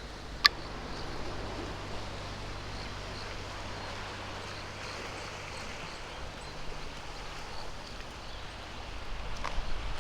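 Steady outdoor ambience with a faint low hum, broken by one sharp click about half a second in and a few soft rustles near the end.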